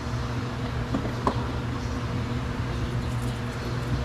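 Steady low background hum with a couple of light clicks about a second in, from the rear door trim panel and its handle cable being unhooked.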